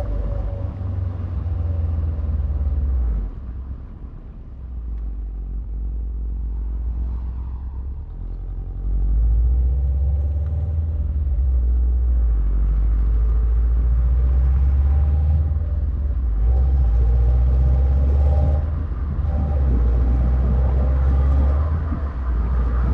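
2018 Subaru WRX STI's turbocharged EJ257 flat-four engine running with a deep rumble. It drops off about three seconds in and comes back louder about nine seconds in.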